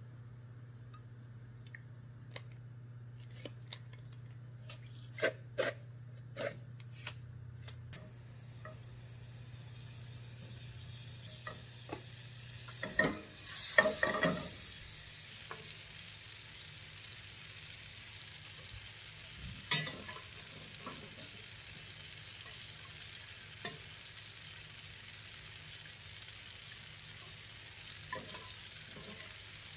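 Butter melting and sizzling in a nonstick frying pan: a steady hiss that builds from about halfway through. Before it come a few light clicks and knocks, then a louder clatter as the pan is handled on the stove.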